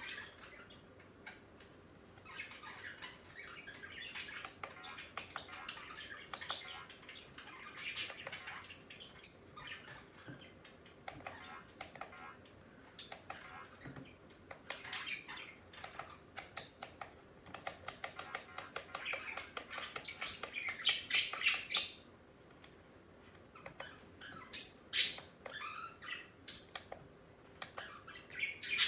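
A bird chirping and squawking in short, sharp, irregular calls, sometimes in quick runs, over a faint steady hum.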